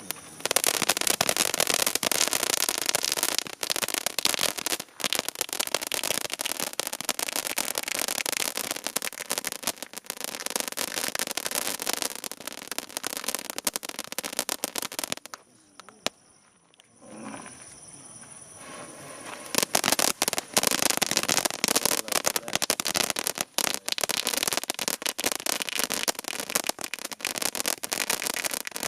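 Waterfall pencil fireworks burning with a dense, loud crackling of sparks. It dies away about halfway through, then picks up again a few seconds later and carries on.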